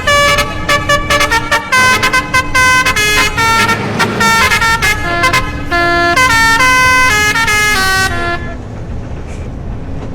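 Basuri telolet horn, a multi-trumpet bus horn, playing a quick tune of short stepped notes that stops about eight seconds in. A quieter steady low drone carries on after it.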